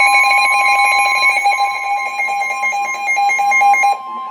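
Electronic Emergency Alert System alert tones signalling a flash flood warning: a loud, rapidly pulsing electronic alarm whose upper tones step back and forth in pitch. It drops off sharply about four seconds in.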